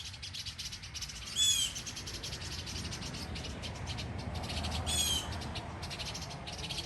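Two sharp bird alarm calls, one about a second and a half in and another about five seconds in, over a steady high insect trill. The birds are alarm-calling at a small black snake creeping toward their nest of hatchlings.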